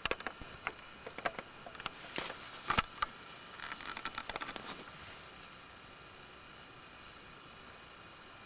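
Handling noise on a camcorder's built-in microphone: a scatter of clicks and rustles over the first five seconds, the loudest just before three seconds in, then only a steady hiss.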